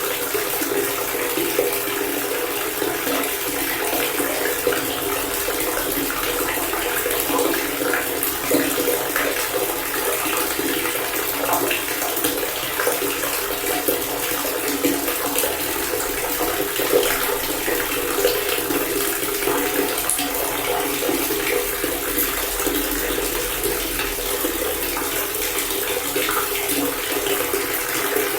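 Water pouring steadily from a faucet fountain, a continuous splashing stream with small flickering splashes and little bass.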